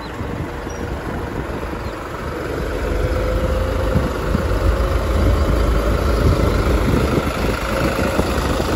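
New Holland 3630 tractor's diesel engine running as the tractor drives along the road close by, a steady low rumble that grows louder about two to three seconds in.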